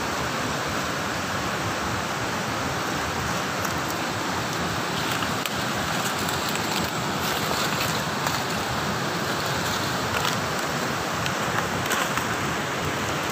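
River water rushing, a steady, even sound with a few faint ticks over it.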